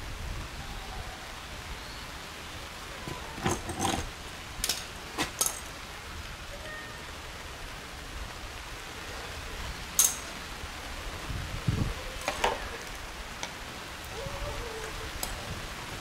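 Several sharp metal clicks and clacks as a high-pressure hose coupling is fitted and tightened by hand onto the brass outlet of an electric pressure-washer pump, over a steady hiss of rain.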